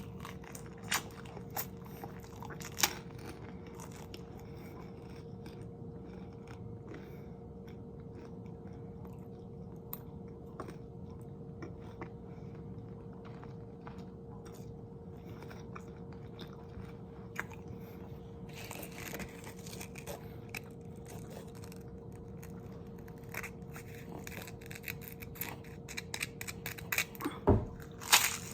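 Close-miked chewing and crunching of food, with scattered sharp bites and mouth clicks over a faint steady hum. The bites are sparse through the middle and come thicker and louder over the last few seconds.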